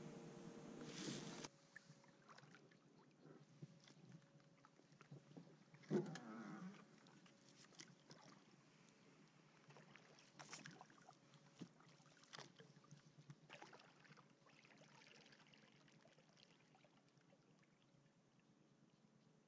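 Faint, quiet strokes of a kayak paddle: the blade dipping and dripping, with scattered small clicks and knocks against the boat and one louder, short sound about six seconds in.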